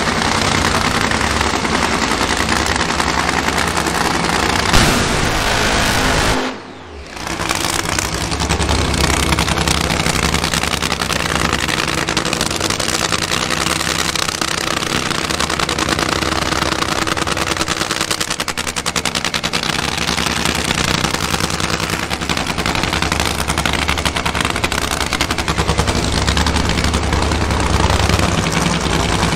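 Supercharged nitromethane-burning drag-racing engine running, a harsh rapid crackle like machine-gun fire from the open exhaust headers. The sound drops away abruptly for about a second some six seconds in, then comes back just as loud.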